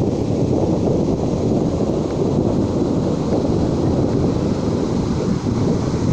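Ocean surf washing ashore in a steady rush, mixed with sea breeze buffeting the microphone.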